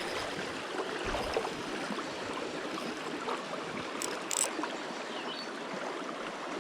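Shallow creek water running steadily, with two brief sharp ticks about four seconds in.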